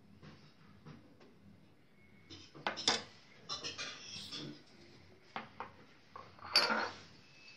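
A serving utensil clinking and scraping against an enamel cooking pot and drinking glasses as thick, warm chocolate pudding is ladled out: a run of sharp clinks and short scrapes, with the loudest clusters about three seconds in and again near the end.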